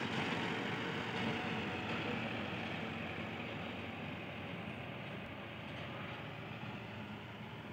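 Tractor towing a feed mixer wagon, its engine running as a steady hum that slowly fades as it drives away.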